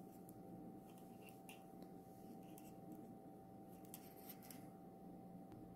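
Faint, scattered clicks and rubbing of knitting needles as knit stitches are worked, over a steady faint hum.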